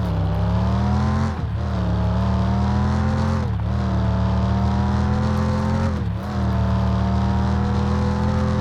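Car engine sound effect running under load: the pitch climbs slowly, dips briefly and recovers three times, like gear changes, then holds steady.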